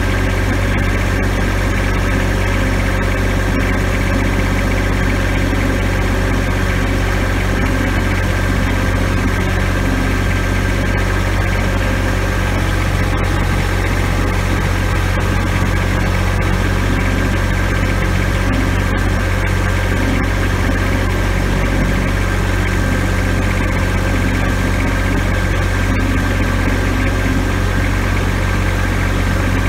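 Tractor engine running steadily under way, with no change in speed or pitch.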